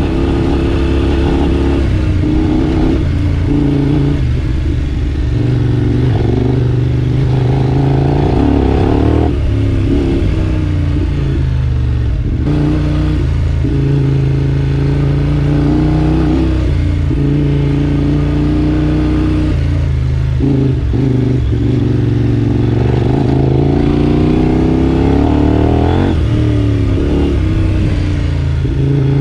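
Adventure motorcycle engine pulling the bike along a gravel dirt road. The revs rise and fall repeatedly, dropping back sharply a few times as the rider eases off or shifts.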